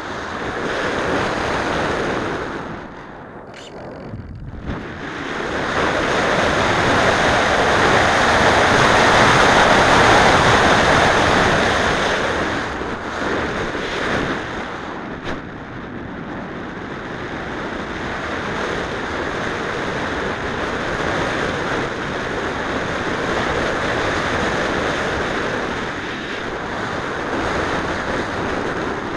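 Air rushing over the onboard camera's microphone on a slope-soaring model glider in flight, with no motor heard. The rush swells and fades with airspeed: it drops briefly about three seconds in, rises to its loudest around a third of the way through, then eases to a steadier level.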